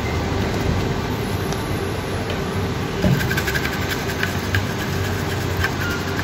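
Hot-air rework station blowing steadily with a low hum, with a few light clicks and taps from about halfway in.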